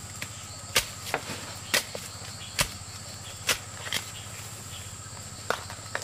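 A series of sharp, short knocks at uneven intervals, roughly one a second, like chopping or striking wood. Under them runs a steady high-pitched insect drone.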